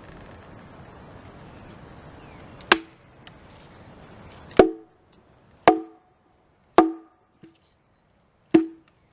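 Zippo AxeSaw's hatchet head chopping into wood: five sharp strikes, each with a brief ringing tone, about one to two seconds apart.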